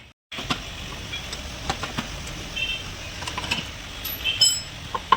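Steady background noise of a car repair workshop with scattered light clicks and a few short high chirps or squeaks.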